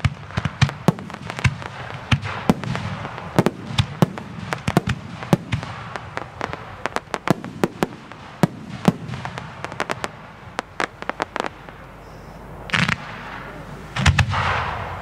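Fireworks display: a dense run of rapid sharp cracks and bangs from bursting aerial shells and crackling stars, thinning out about eleven seconds in. Near the end come two louder short rushes of noise as comets are fired up from the ground.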